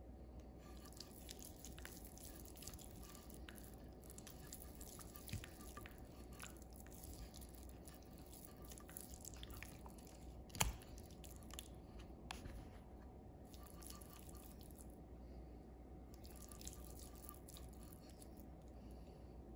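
Faint wet squishing and small clicks of a hand rubbing butter into a raw beef roast in a glass baking dish, with one sharp tap about halfway through.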